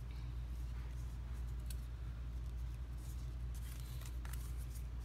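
Light rustling and small clicks of cardstock being handled as brass paper fasteners join the limbs of a paper puppet, over a steady low hum.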